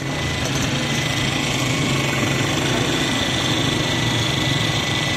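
Steady small-engine drone with a thin, constant high whine over street noise, holding level without change.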